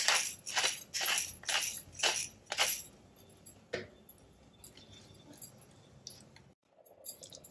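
Hand-twisted black pepper grinder cracking peppercorns, a gritty crunch about twice a second for the first three seconds. After that, one more tap and faint stirring of a silicone spatula in a nonstick pan.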